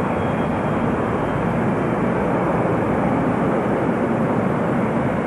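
Jet airliner's engines at takeoff power as it rolls down the runway and lifts off: a steady, even rushing noise.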